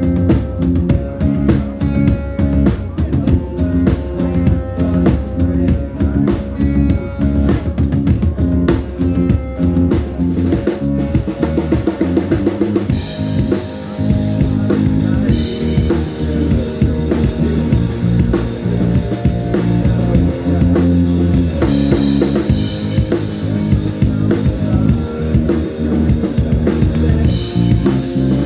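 Rock band playing live in an instrumental stretch with no vocals: a drum kit with bass drum and snare drives the beat under bass and guitar. About halfway through, cymbals come in, with loud crashes every few seconds.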